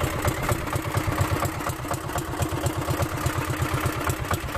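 Boat engine running steadily, with a fast, even low thumping beat.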